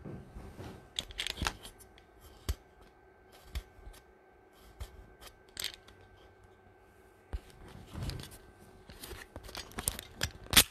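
Handling noise from the camera as it is picked up and moved: scattered clicks and rustles, with one sharp knock near the end.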